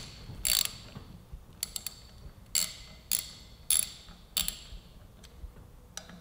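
Hand socket ratchet clicking in short separate bursts as brake rotor bolts are run down just until they seat, with a few light metal clinks between.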